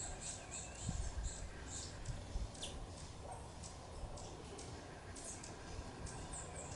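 Small garden birds chirping, with many short, high chirps repeating through the whole stretch. A few low thumps come about a second in and again a little later.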